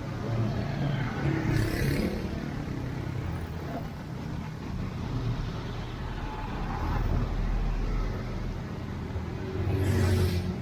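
Street traffic: car engines running steadily, with vehicles passing louder twice, about two seconds in and near the end.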